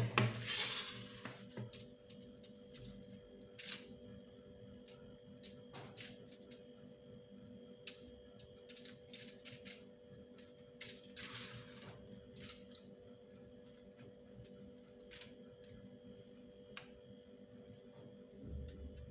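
Kitchen handling sounds as a spice-and-oil marinade is worked over chicken pieces: scattered light knocks and clicks of a utensil against a bowl, with two brief scraping sounds, one about a second in and one about halfway through, over a steady faint hum.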